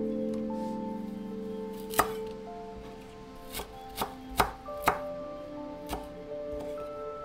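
Chef's knife chopping fresh dill on an end-grain wooden cutting board: about six separate sharp knocks, irregularly spaced, from about two seconds in to about six seconds in, over soft background music with held notes.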